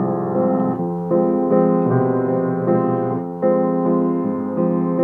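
Piano played solo as the instrumental introduction to a song, with sustained chords changing about once a second.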